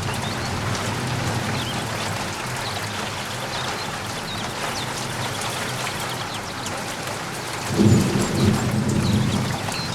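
Steady rain falling, with a low rumble swelling about eight seconds in and lasting a couple of seconds.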